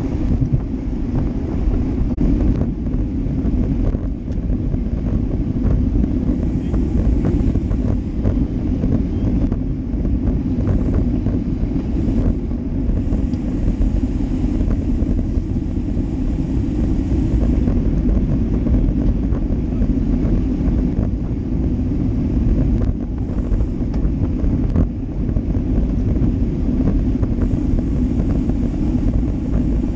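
Steady wind buffeting a GoPro Hero Session action camera's microphone on a moving road bike, mixed with the rumble of tyres on asphalt.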